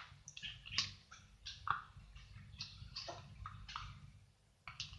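Irregular short scrapes and clicks, about ten over a few seconds, as a spoon scoops sticky glue out of its plastic container.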